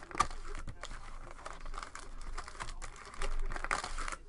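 Foil-wrapped trading card packs crinkling and rustling as they are pulled out of a hobby box and handled, with a sharp click just after the start and louder rustling near the end.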